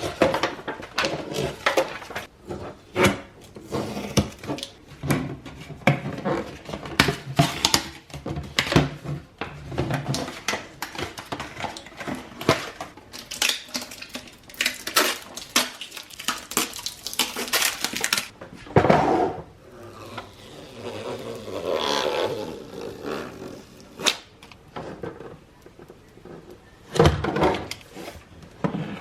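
Irregular clinks, knocks and clatter of dishes and food containers being handled and set down, dense at first and thinning out in the last third.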